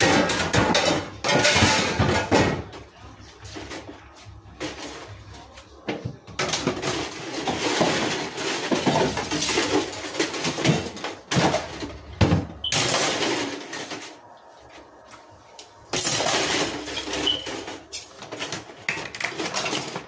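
Dishes being washed by hand at a kitchen sink: plates and cutlery clattering, with long stretches of steady rushing noise from the tap running, stopping and starting a few times.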